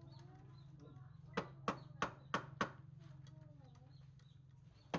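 Sharp blows of a tool on wood: five quick knocks about three a second, over a steady low hum, with faint wavering calls in the background.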